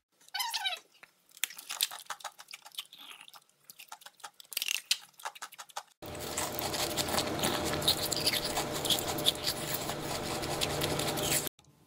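Close-up eating sounds: sharp cracks and crackles of ice being bitten, then, after a sudden change about halfway through, denser crunching and chewing of a frozen treat over a steady low hum.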